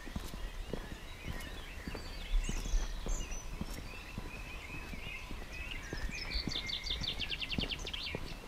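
Several birds singing and chirping from the trees, with a fast trill of about nine notes a second near the end, over the regular footsteps of someone walking.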